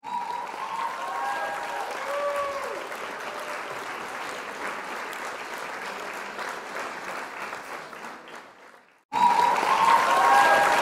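A group clapping and cheering, with a few shouted voices through it. It fades out near the end, stops briefly, then starts again abruptly.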